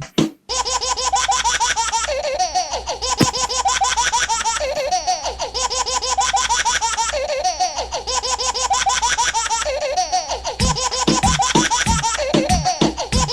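Baby laughing in continuous high, bubbling giggles, the same laugh pattern seeming to repeat every few seconds as a looped sound effect. A low thumping beat comes in under it about ten and a half seconds in.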